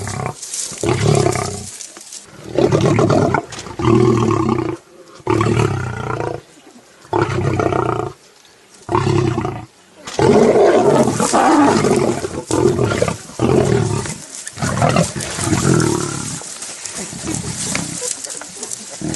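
Lions growling over a zebra kill in repeated deep bursts, each under a second long with short pauses between. About halfway through the growling turns louder and almost unbroken.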